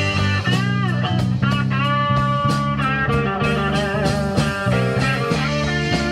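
Live electric blues band playing an instrumental passage: a lead electric guitar bends and sustains notes over bass guitar and drums in a slow blues.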